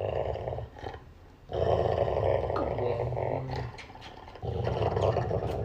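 A dog growling in three long, drawn-out growls with short pauses between them.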